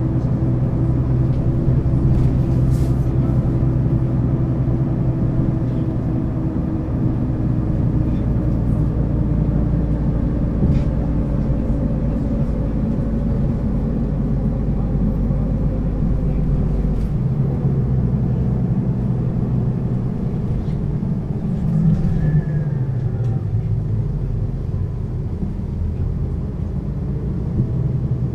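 Mercedes-Benz O 530 G Citaro articulated bus under way, heard from on board: the diesel engine and Voith automatic gearbox give a steady, loud hum. Its note sinks slowly through the first half. A little past halfway the deepest rumble eases, and a few seconds later the note rises briefly and falls again.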